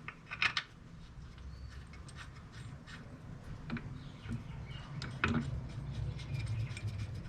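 Metal clicks and clinks of bolts, lock washers and a hand wrench being worked at a Hurst shifter's mounting on a transmission, with a run of quick small ticks near the end.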